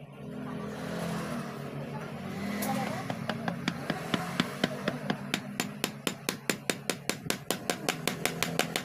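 Quick, even metal taps, about four or five a second, starting about three seconds in: a new mechanical seal being tapped down into a Yamaha Jupiter MX water pump housing with a socket used as a drift.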